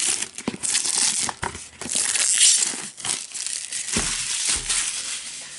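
Plastic shrink wrap being peeled off a keyboard box and crumpled, crinkling in irregular bursts with a few sharp crackles.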